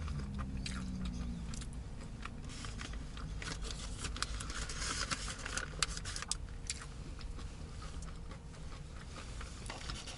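Paper burger wrapper crinkling and rustling as it is handled, a run of short crackles and clicks that is busiest about halfway through, over a low steady hum.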